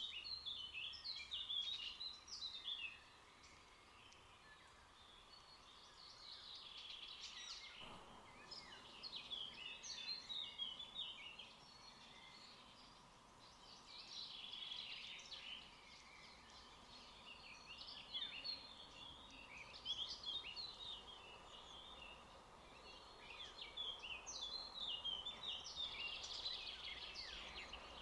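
Wild birds chirping and calling in repeated clusters of short, high notes, over faint steady outdoor background noise.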